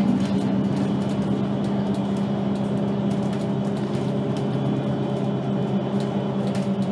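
Diesel engine of a VDL Citea LLE-120 city bus running steadily at an even pitch, with light rattling clicks throughout.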